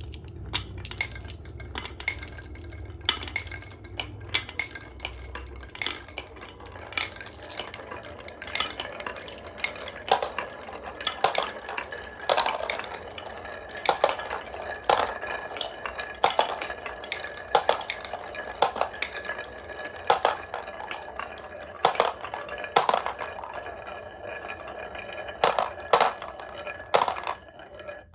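Marbles rolling down a wooden HABA marble run, clicking and clattering against the track and each other, with a steady rolling hum underneath. The clicks come thicker and louder from about eight seconds in.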